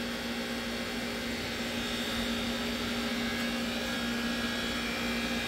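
Steady machinery hum: a constant low drone with a fixed tone over an even rushing noise, unchanging throughout.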